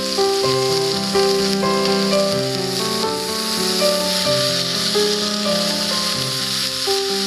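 Background music, a melody of held notes stepping from one to the next, over a steady sizzling hiss of food cooking.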